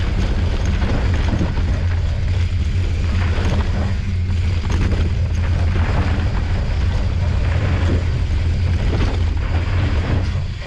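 Mountain bike rolling down a dirt singletrack, with wind buffeting the action camera's microphone in a constant low rumble. Tyres crunch on the dirt, and short knocks and rattles come from the bike over bumps.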